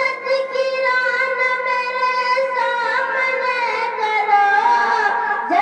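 A boy singing a naat into a microphone, drawing out one long held note that turns into wavering, ornamented runs about halfway through.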